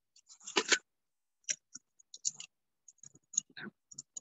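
Handling noise as small camping stove gear is packed away: a short clatter just under a second in, then scattered small clicks and scrapes.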